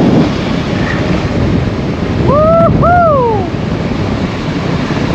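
Wind rushing over the microphone of a camera on a moving motorcycle, a loud steady rumbling rush. About two and a half seconds in, two short tones rise and then fall, one after the other.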